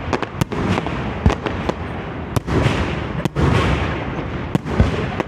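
Aerial fireworks show: a rapid string of sharp bangs and crackles over a continuous rumble of shell bursts.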